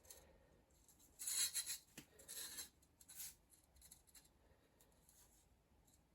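A few short faint scrapes and one light click: hand-handled metal mower parts, the new bottom blade being shifted and rubbed against its mounting to line up the screw holes.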